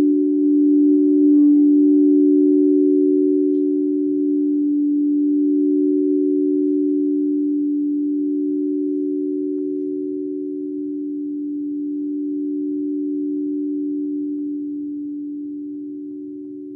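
Singing bowl ringing on with two steady, close tones, its level slowly swelling and ebbing, a few faint higher overtones dying away in the first few seconds. The ringing fades near the end.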